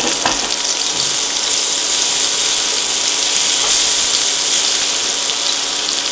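Sliced onions sizzling in hot oil in a non-stick wok: a steady, loud frying hiss with faint crackles.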